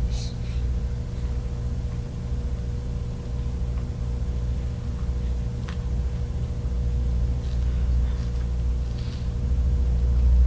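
Steady low rumble with an electrical hum: room tone, with a few faint clicks and a low swell near the end.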